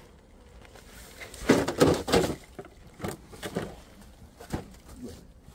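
RC rock crawler knocking and scraping against a concrete edge as it tries to climb, with a quick cluster of hard knocks about one and a half seconds in, then a few single knocks.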